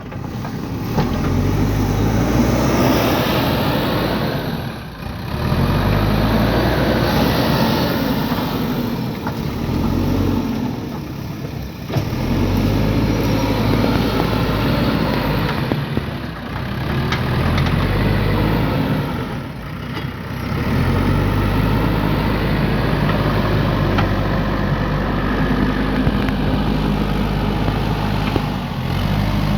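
JCB 3DX backhoe loader's diesel engine working under load, its revs rising and falling in repeated cycles with brief dips several times, as the hydraulics dig and lift.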